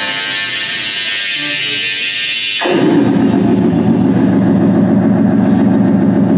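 Electronic sampled sound from the installation's sampler: a hissy, high texture with faint held tones, then, a little under three seconds in, an abrupt switch to a louder low buzzing drone.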